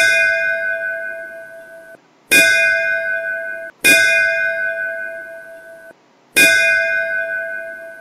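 Recorded school-bell sound played by a computerized automatic school-bell program as the period-five bell: single bell strikes about two seconds apart, each ringing with several steady tones and fading before it cuts off abruptly.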